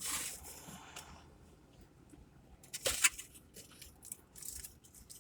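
Rustling and tearing noises as a large fried-chicken ciabatta sandwich is handled, with a burst at the start and a few sharp crackles about three seconds in.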